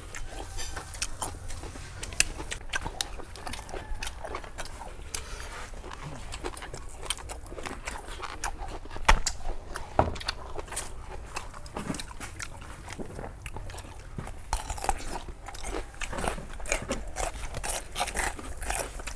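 Close-miked chewing and crunching of food: irregular crisp bites and mouth noises as raw vegetables and grilled pork are eaten.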